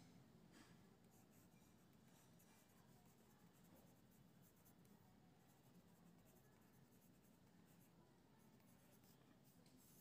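Faint scratching of a graphite pencil on paper as words are written by hand, in short irregular strokes.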